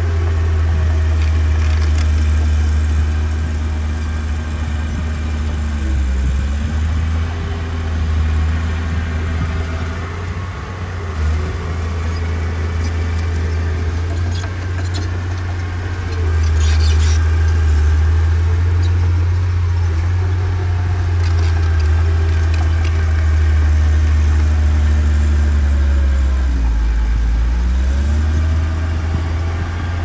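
Diesel engine of heavy earthmoving machinery running steadily with a deep drone, its pitch dipping and recovering twice as the load changes. There is a brief rattle a little past the middle.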